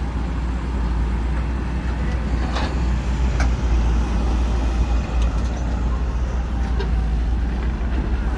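Heavy diesel machinery running steadily with a deep, low rumble, with a few faint knocks about two and a half and three and a half seconds in.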